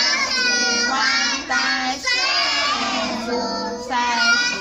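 Young children singing a children's song, one sustained sung line after another.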